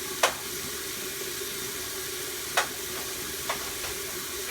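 Hot water running steadily from a kitchen tap, with two sharp clinks, one just after the start and one about two and a half seconds in, and two fainter taps near the end.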